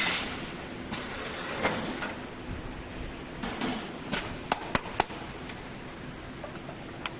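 Automatic cup-sealing machine working: a steady low hum with a loud mechanical clunk at the start, several shorter thumps, and a quick run of sharp clicks about four to five seconds in.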